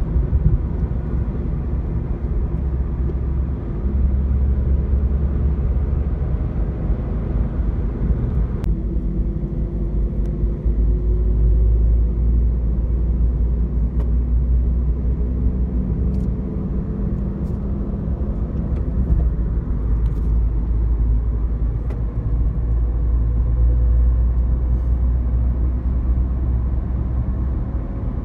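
Car driving, heard from inside the cabin: a steady low rumble of engine and road noise, with a few faint ticks.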